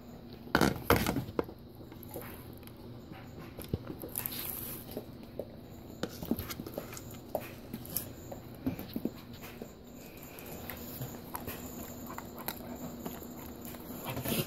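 Handling clatter: a loud knock and rustle about half a second in, then a string of light clicks and taps as a butter knife is scraped around inside a peanut butter jar. Footsteps and dog claws click on a hard floor.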